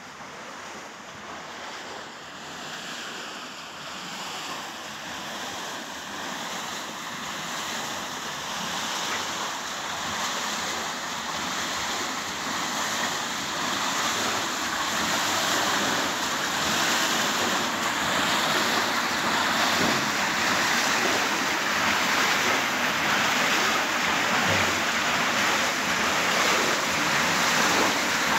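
Water rushing and splashing through a steel paddle waterwheel on an old water mill, a steady churning noise that grows steadily louder.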